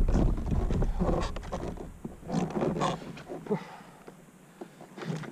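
Scattered knocks, clicks and rustles of a landing net and a freshly caught smallmouth bass being handled on a Hobie Outback fishing kayak. A low rumble on the microphone fills the first two seconds, then fades, leaving the handling noises quieter.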